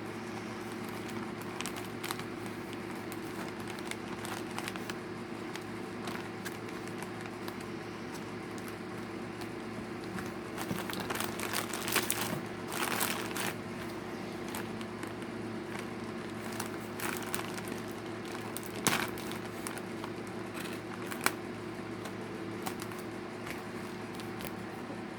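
Plastic packaging crinkling and crackling in bursts as items are handled and unpacked, busiest about halfway through, with a few sharp clicks later on, over a steady background hum.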